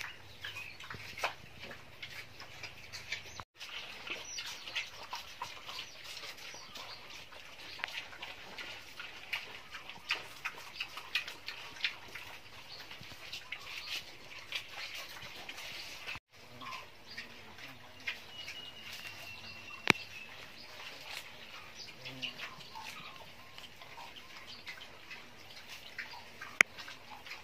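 Farmyard ambience around wild boar piglets and a sow feeding: frequent short clicks and chirps, with a brief high, steady call a little past the middle and a couple of sharp clicks.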